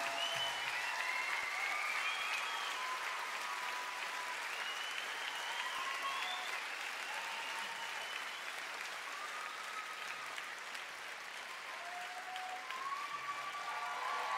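Concert crowd applauding and cheering, with scattered shouts and whoops over the clapping. The applause eases off a little past the middle and swells again near the end.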